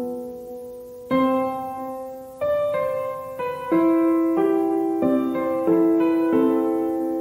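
Slow, soft piano music: chords and single notes struck every second or so and left to ring and fade.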